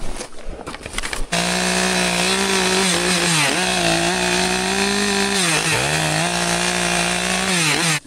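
A chainsaw running at high speed, cutting in abruptly about a second in and cutting off abruptly near the end; its pitch sags twice and recovers, as it does when the chain loads up in the wood. Light knocks and rustling come before it.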